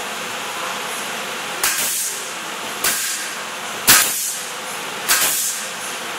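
Pneumatic nail gun firing four times, a little over a second apart, each shot a sharp crack followed by a short hiss of exhaust air, fastening the plywood skin to the wooden frame of a scenery panel.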